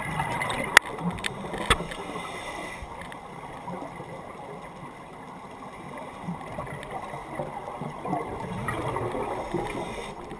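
Scuba breathing heard underwater: exhaled bubbles from a regulator rumbling and gurgling, swelling at the start and again near the end. Two sharp clicks come in the first two seconds.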